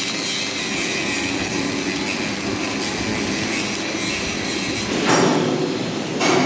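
CO2 (MIG/MAG) welding arc on a butt joint, a steady crackling hiss, with a louder surge about five seconds in and again near the end.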